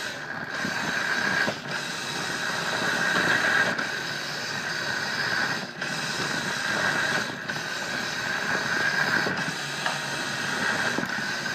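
Toy RC 4x4 truck's small electric motor and plastic gearbox whirring as it drives, heard close up from a phone riding on the truck, with brief breaks every couple of seconds.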